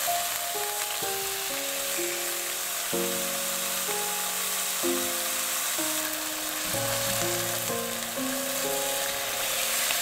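Pork belly slices in a red marinade sizzling steadily as they fry in a nonstick pan, under soft background music of slow, held melodic notes.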